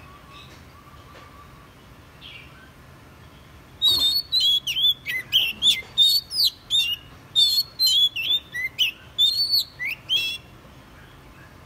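Oriental magpie-robin singing: a run of loud, varied whistled phrases with quick up-and-down slurs, starting about four seconds in and stopping about six seconds later.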